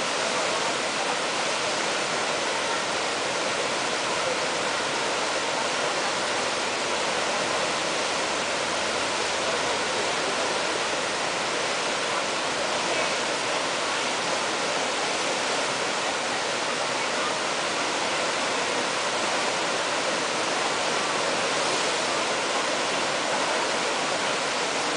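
Steady rush of whitewater: fast river current churning through a standing surf wave. The noise is even throughout, with no single splash standing out.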